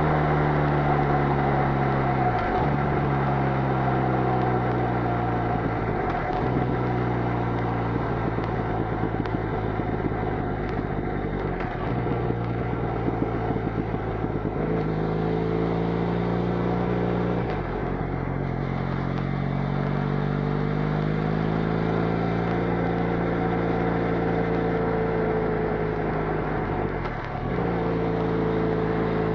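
Benelli Leoncino 500's parallel-twin engine running at highway speed through its stock exhaust. The engine note rises and falls with the throttle, with several brief sharp dips in pitch, over steady road and wind noise.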